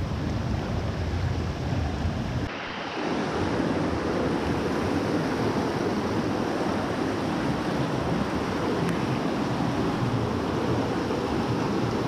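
Steady rush of flowing creek water. About two and a half seconds in the sound changes abruptly, a deep rumble dropping away and the even rush carrying on.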